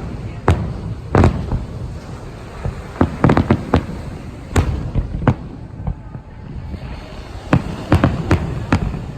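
Aerial fireworks show: a rapid, irregular series of sharp booming shell bursts over a low rumble, with clusters of bangs a few seconds in and again near the end and a brief lull in between.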